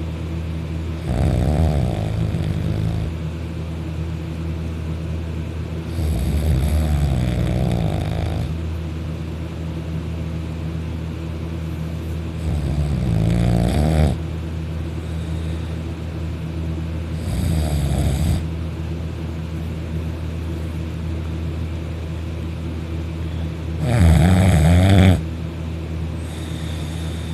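Loud snoring in deep sleep: five snores about five or six seconds apart, the loudest near the end, over a steady low hum.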